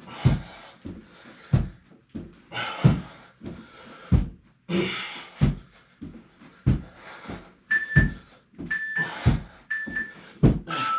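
Feet thudding on the floor about every two-thirds of a second, with hard, breathy exhalations, during double-foot mountain-climber thrusters. Near the end an interval timer gives three short beeps a second apart, then a longer, lower beep marking the end of the work set.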